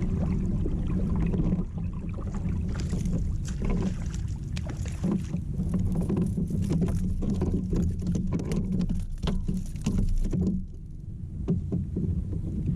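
Sounds of handling and moving on a plastic kayak: a steady low drone with many small clicks and knocks, which stops suddenly about ten and a half seconds in.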